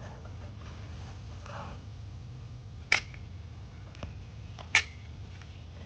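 Two sharp clicks about two seconds apart from a silicone caulk gun's trigger being pumped to force silicone into a Nike Air sole's air unit, over a steady low hum.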